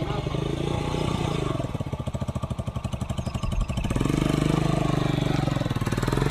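Single-cylinder engine of a Bajaj Boxer motorcycle converted into a three-wheeled mini tractor, chugging at low revs with even firing pulses. From about four seconds in it opens up and runs louder as it pulls a weeding tool through the soil.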